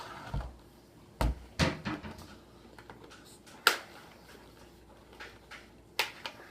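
Plastic screen bezel of a Lenovo IdeaPad Y500 laptop being pressed onto the lid, its tabs snapping into place with a few sharp clicks, about a second in, near the middle and near the end.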